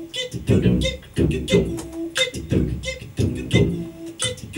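Human beatboxing into a handheld microphone: vocal kick-drum thumps about twice a second, with crisp hi-hat ticks and short voiced tones between them in a steady groove.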